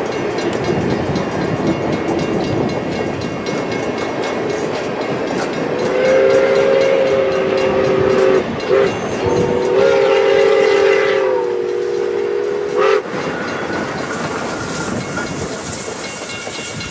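Pere Marquette 1225, a 2-8-4 Berkshire steam locomotive, sounding its chime whistle over the steady noise of the moving train: a long blast starting about six seconds in, a brief toot, then another long blast that stops about thirteen seconds in.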